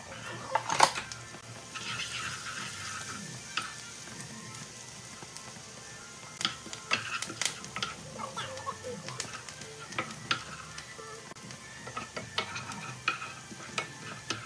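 Diced shallots sizzling in butter in a ceramic nonstick skillet, with a sharp knock about a second in. From about six seconds in, a wooden spoon stirs and scrapes against the pan, giving repeated clicks and taps over the sizzle.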